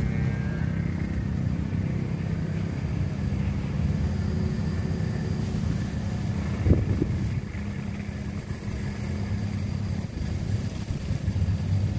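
Steady low hum of motor-vehicle engines, motorcycles among them, with a single brief knock a little past halfway.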